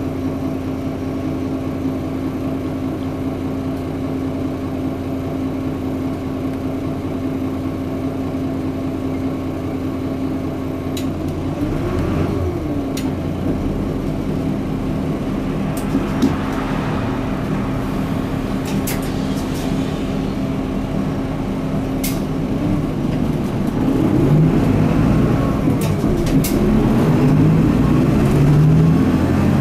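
Mitsubishi Fuso Aero Midi MK bus's 6M61 inline-six diesel heard from inside the cabin, idling steadily while the bus stands still. In the second half it pulls away and accelerates, the engine getting louder and rising in pitch near the end, with a few scattered clicks and knocks.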